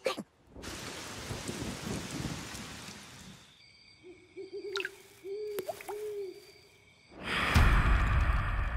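Cartoon night ambience: an owl hooting several times over a high steady drone, with a quick water-drop blip among the hoots. A loud low rumble comes in near the end.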